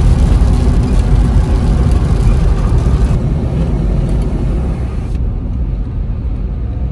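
Steady road noise heard inside a moving car: low tyre and engine rumble with a hiss of tyres on wet asphalt. The hiss drops away in two steps, about three and five seconds in.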